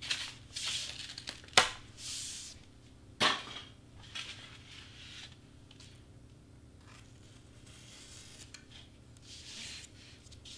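A large sheet of cardstock being shifted and slid across a cutting mat, with rustling and two sharp knocks in the first few seconds. Then the faint, intermittent scratch of a craft-knife blade cutting through the cardstock.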